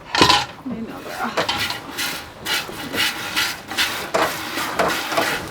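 Footsteps crunching through cold, dry snow: a series of short, rasping crunches, about one each half second to second.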